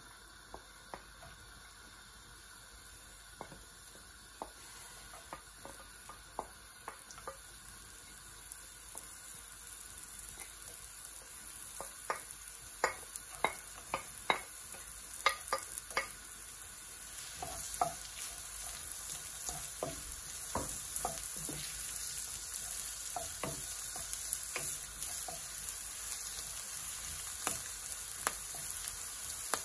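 Chopped onion, garlic and green onion sizzling in a little oil in a non-stick wok, the sizzle growing steadily louder as the oil heats. A wooden spoon stirs them, with many light taps and scrapes against the pan.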